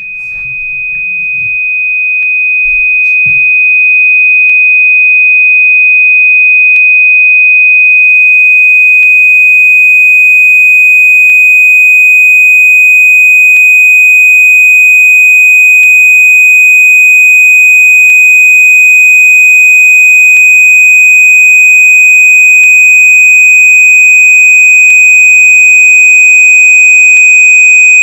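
A loud, steady, high-pitched electronic pure tone. It fades in over the first few seconds, then holds on one unchanging pitch.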